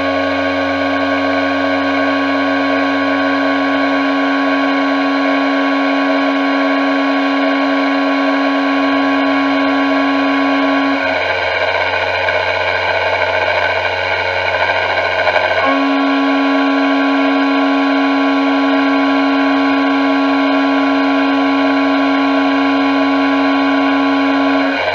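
CNC vertical mill's end mill roughing an aluminium plate under flood coolant: a loud, steady, high-pitched cutting tone over coolant hiss. The tone drops away for about five seconds midway, then returns at the same pitch.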